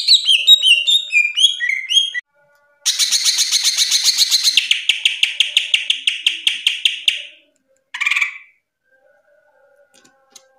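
Cucak ijo (green leafbird) singing. It gives a quick run of descending whistled notes, then after a short pause a long, fast rattling trill of repeated notes lasting about four seconds, and then one short call.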